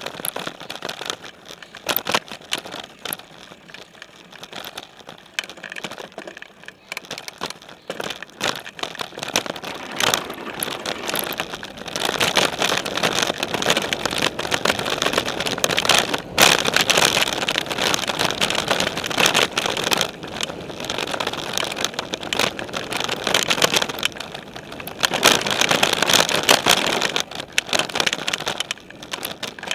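Specialized Stumpjumper mountain bike ridden over a dirt and gravel trail, heard from a camera on its frame: knobby tyres rolling over the ground with steady rattling and clattering from the bike. It gets louder about twelve seconds in as the ride picks up speed.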